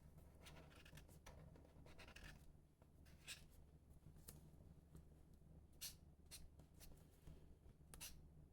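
Faint sounds of 15 cm Tant origami paper being folded and creased by hand. There is soft rustling at first, then a few separate sharp crackles as folds are pressed, over a low steady hum.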